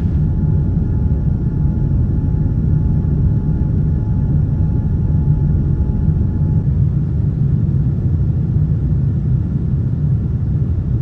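Jet airliner in flight, heard inside the cabin: a steady, loud, low rumble of engines and airflow. A faint high steady tone stops about six seconds in.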